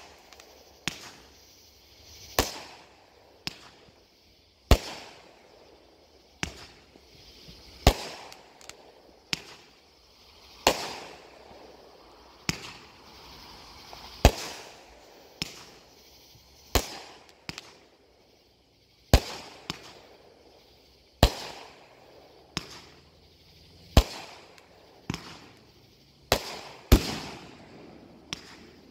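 Aerial fireworks going off in a steady run of sharp bangs, roughly one every second or so, some followed by a brief hiss.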